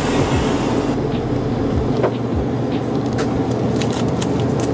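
Steady low rumbling background noise, with a few light clicks and crinkles in the second half from a plastic-wrapped triangle kimbap being handled.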